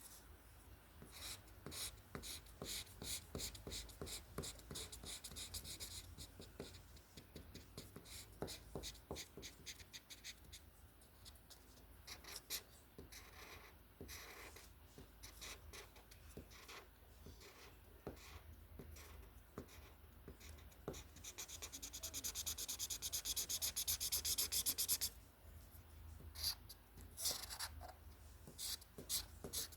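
Drawing tool scratching across paper in short repeated strokes. About three quarters of the way in, a louder run of rapid continuous scribbling lasts a few seconds and stops suddenly.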